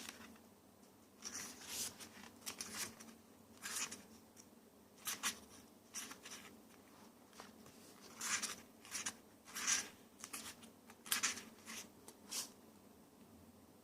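Paper being handled as a photo book is unboxed: irregular short rustles and brushes of paper, some in quick clusters.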